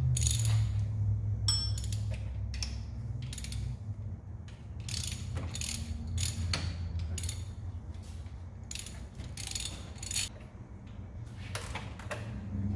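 Hand ratchet wrench clicking in irregular runs as bolts are loosened on an engine's alternator bracket, over a steady low hum.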